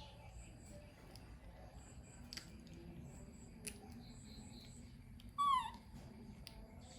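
A young pet monkey gives one short squeal that falls in pitch, about five and a half seconds in, over faint clicks and rustling.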